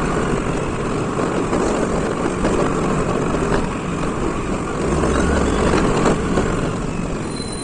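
Riding noise on a moving motor scooter: a steady rushing of wind and road over the microphone with the scooter's small engine beneath, and a low wind rumble swelling about five seconds in.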